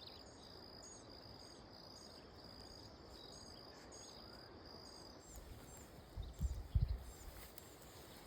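Faint outdoor ambience with a high-pitched chirp repeating about twice a second, alongside a pulsing high note that stops about five seconds in. A few low wind buffets hit the microphone about six to seven seconds in.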